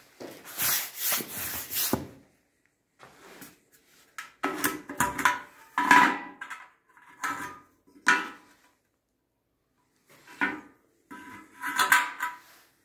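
Fuel tank and filler cap of a 1967 Pannonia P10 motorcycle being handled: rubbing, scraping and clinks in several separate bursts, some with a ringing tone, with short silences between them.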